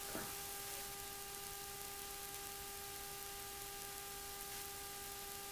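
Quiet room tone: a steady hiss with a faint, constant electrical hum of several steady tones.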